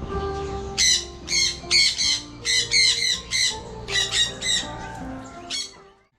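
A bird giving harsh, rapid squawks, about a dozen in quick succession, over background music.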